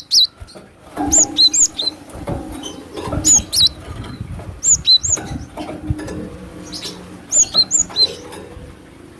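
Cinereous tit calling in four short bursts of sharp, high, quickly bending notes, a few seconds apart, over a low rustling and knocking background.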